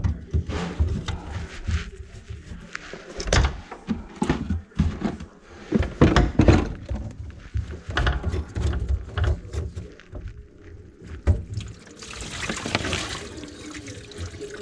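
Knocks and clanks of a wrench and gloved hands on a brass sink drain pipe, with a plastic bucket set down beneath it. About twelve seconds in, water from the grease-clogged drain line starts pouring steadily into the bucket.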